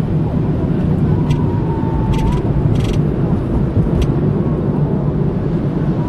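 Steady low rumble of a car's engine and tyres heard from inside the cabin while driving, with a few irregular faint clicks.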